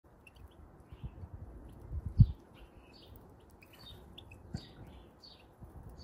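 Goldfinches and other small garden birds twittering in short chirps throughout, with a few low thumps, the loudest about two seconds in.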